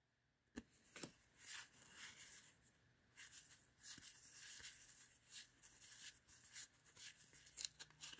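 1990 Fleer basketball trading cards being handled and slid past one another by hand: faint, irregular rustles and light flicks of card stock, starting about half a second in.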